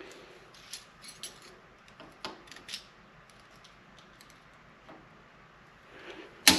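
Light metallic clicks and clinks of snap ring pliers and a snap ring being worked onto a transmission's overdrive output shaft, several in the first few seconds and a sharper, louder click near the end.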